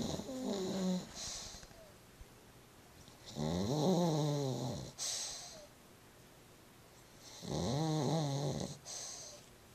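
Pug snoring: buzzing, pitched snores about every four seconds, each followed by a short hiss.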